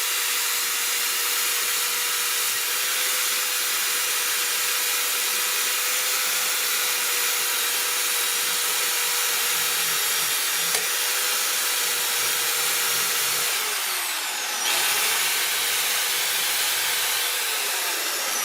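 Electric drill spinning a wire-brush wheel against rusty steel pliers to strip the rust: a steady motor whine under a dense, rasping hiss of wire bristles on metal. The motor pitch dips briefly about fourteen seconds in, then picks back up.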